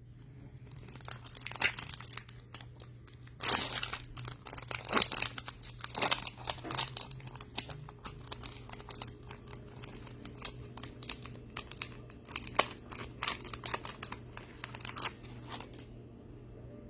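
Plastic trading-card pack wrappers crinkling and tearing as packs are opened and handled, in irregular bursts that die down near the end, over a steady low hum.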